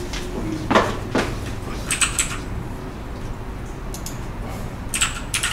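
Computer keyboard typing: a few short runs of light key clicks while a search is typed in. Two brief rising squeaks come about a second in.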